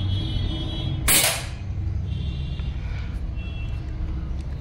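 Precihole PX100 Achilles PCP air rifle firing a single .177 pellet about a second in: one sharp, loud shot with a brief tail, over a steady low background hum.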